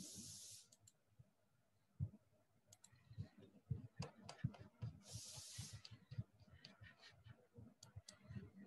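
Near silence with faint scattered clicks and two short soft hisses, one at the start and one about five seconds in.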